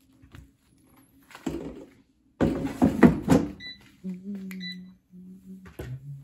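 Santoku knife crunching through the crackling skin of roasted pork belly on a wooden cutting board, with a loud crackly stretch about two and a half seconds in. A low steady hum follows near the end.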